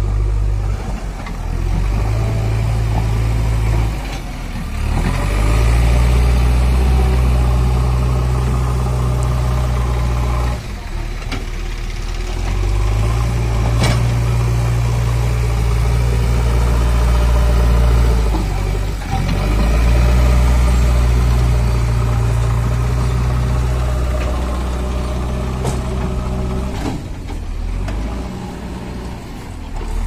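Diesel engine of a JCB 3DX backhoe loader running at high revs under load while working over a sand pile, dropping back briefly about four times before pulling up again.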